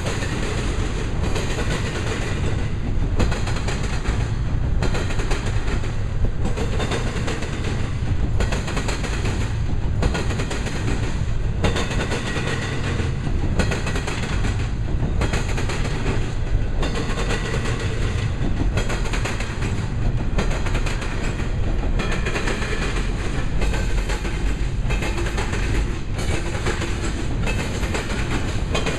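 Loaded double-stack intermodal well cars of a freight train rolling past, steel wheels running on the rails with a clickety-clack. The sound has a regular beat, rising and dipping about every second and a half.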